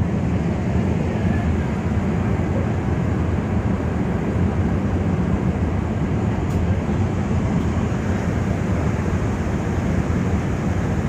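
Ferry's diesel engines running with a steady low rumble while the ship manoeuvres to berth at the dock.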